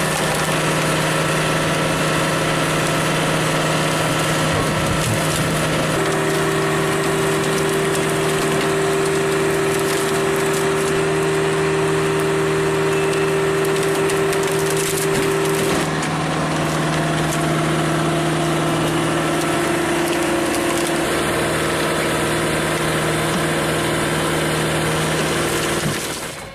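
Bell Super Splitter's 80 hp Cat turbo diesel engine running steadily while the machine splits large logs, with wood cracking and splintering. The engine hum shifts slightly in pitch about two-thirds of the way through.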